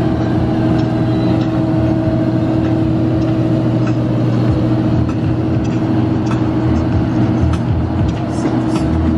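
Steady drone of a running engine, a constant hum that holds one pitch, with a few faint ticks over it.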